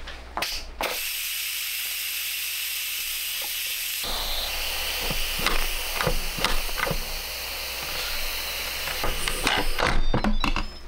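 Instant Pot electric pressure cooker venting steam through its pressure-release valve: a steady hiss that starts about a second in and grows louder and rougher from about four seconds in, the pressure being let off once the soup is cooked. Near the end come plastic clicks and knocks as the lid is twisted and lifted.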